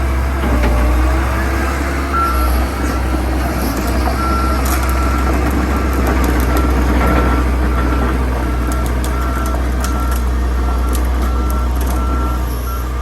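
Komatsu PC120-8 hydraulic excavator running, its diesel engine giving a steady low drone, while its travel alarm beeps in a steady repeating pattern, roughly every three-quarters of a second from about two seconds in: the sign that the machine is tracking.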